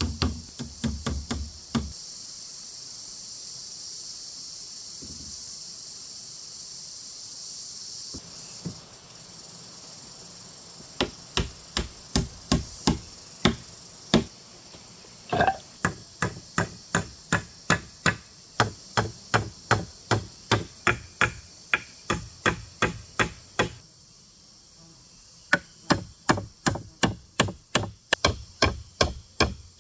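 A hand tool striking wood in a steady run of sharp blows, about two a second. The blows start about a third of the way in and break off briefly near the end before resuming. A high, steady hiss is heard for several seconds near the start.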